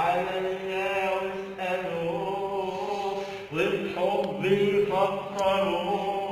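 A man singing a long wordless melismatic line, held notes sliding and bending in pitch, with no lyrics in this stretch.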